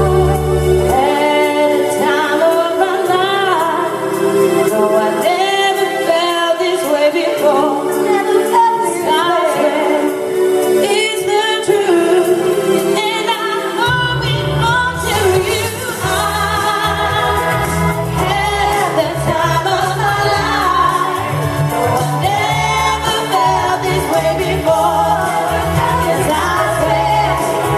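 Loud pop music with singing. The bass drops out about a second in and comes back about fourteen seconds in.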